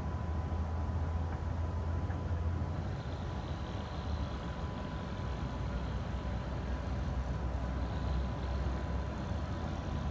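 Steady low rumble of heavy diesel machinery running, with a thin constant whine over it.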